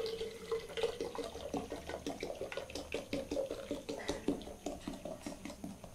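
Cold soda poured from a plastic bottle through a strainer into a glass teapot of blended mint drink: a stream splashing with many small crackles, slowly dying down toward the end.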